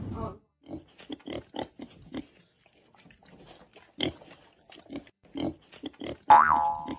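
An animal grunting or snorting in short, quick bursts, then a loud squeal that rises and falls in pitch near the end.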